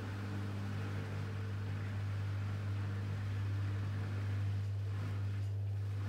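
Electrolux PerfectCare 600 (EW6F3146EB) front-loading washing machine running, a steady low hum with a faint hiss over it.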